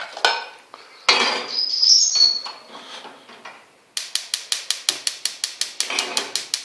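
A metal pot clatters and scrapes with a brief rising squeal, then a gas stove's igniter clicks rapidly and evenly, about six clicks a second, as the burner is lit.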